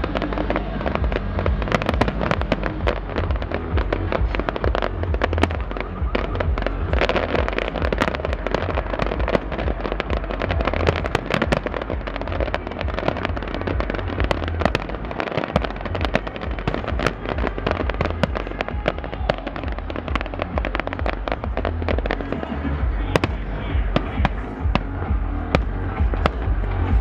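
Fireworks bursting and crackling in rapid, dense succession over loud electronic dance music with a heavy, pulsing bass.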